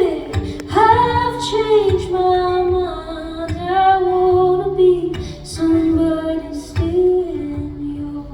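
Woman singing long, held melodic lines live, with a strummed acoustic guitar keeping a steady beat underneath.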